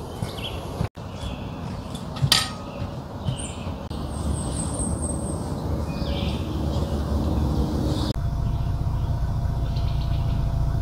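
Outdoor ambience dominated by wind rumbling on the microphone, with a single metallic clink of cookware about two seconds in and a short high bird trill near the middle.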